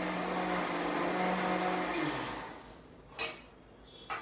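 Electric mixer grinder running as it grinds betel leaves with soaked fennel and gulkand, then switched off about two seconds in, its motor winding down. Two short knocks follow near the end.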